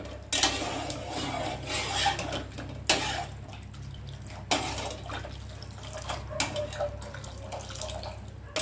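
Steel ladle stirring chicken soup in a metal pot: a few sharp clinks and scrapes of metal on the pot, with broth splashing and pouring back from the ladle.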